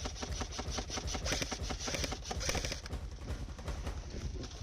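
Airsoft guns firing on full auto, a fast rattling stream of clicks in long bursts, a little lighter about three seconds in.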